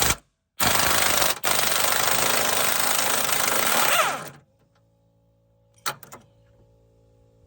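Pneumatic 3/8-inch impact wrench hammering on a bolt for about four seconds, with a short break early on, trying to break it loose. A brief knock follows near the end.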